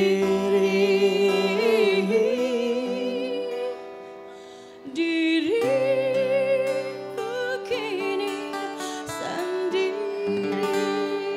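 A woman singing a slow Indonesian pop ballad to acoustic guitar, holding the last word of the line 'diriku kini sendiri' on a wavering note. The music drops away briefly about four seconds in, then a wordless sung phrase carries on over the guitar to the close of the song.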